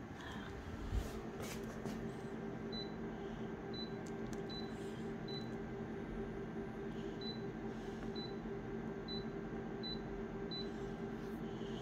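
Photocopier touchscreen giving a short high key beep at each finger tap, about nine beeps spaced roughly a second apart, over the machine's steady hum. A single thump comes about a second in.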